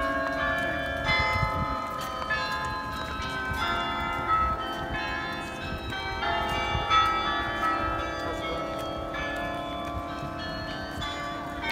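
A carillon's bells playing a slow tune. Each struck note rings on under the next, with a low rumble of background noise beneath.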